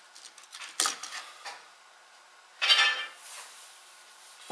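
Plastic and metal parts of a Stihl chainsaw recoil starter clicking and clattering as the rope pulley is worked loose and lifted out of its housing. There are a couple of light clicks, then a louder clatter about two and a half seconds in.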